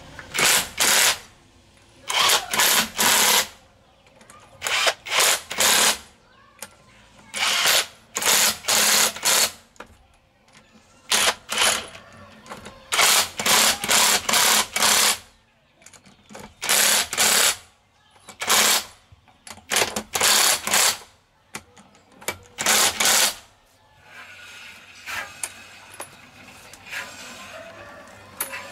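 Cordless impact wrench hammering on a car wheel's lug nuts in about ten short bursts of a second or so each, one nut after another, with short pauses between.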